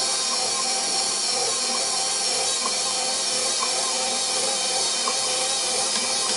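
KitchenAid stand mixer running at a steady speed, its motor giving an even whine as it stirs bread dough, with a few faint ticks now and then.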